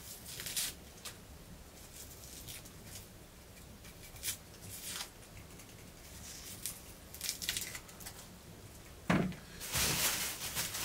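Kitchen knife peeling dry, papery onion skins: scattered soft scrapes and crackles. Just after nine seconds there is a knock, then a second of louder rustling.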